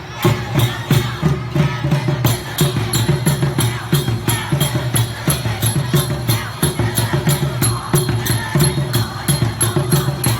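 Percussion music with a fast, steady beat of about four strikes a second, with heavy low drum beats and sharp, bright strikes.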